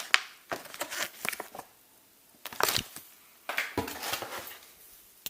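Unboxing handling noises: short rustles of packaging and sharp clicks and knocks as items are taken from the box, with quiet gaps between.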